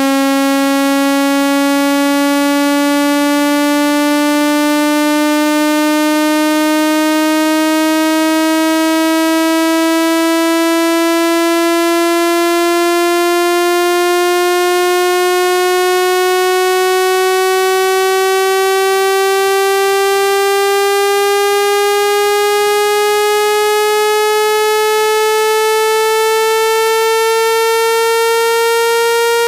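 Speaker-cleaning test tone: a single loud, buzzy electronic note, rich in overtones, gliding slowly and smoothly upward in pitch by nearly an octave at constant loudness. It is played to shake water and dust out of a phone speaker.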